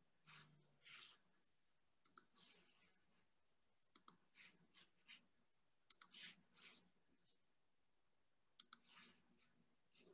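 Faint sharp clicks, two or three at a time, about every two seconds, each followed by a short soft hiss.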